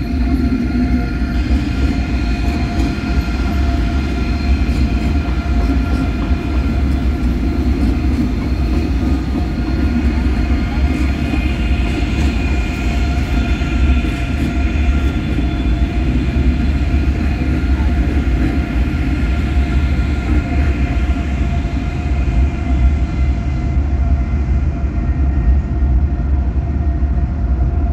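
Electric passenger train running past on a steel truss railway bridge: a loud, steady rumble with several steady high tones ringing above it.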